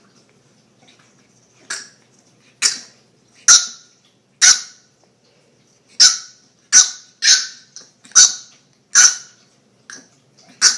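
French bulldog puppy barking at a cat: about ten short, high-pitched yaps in an irregular string, starting a little under two seconds in.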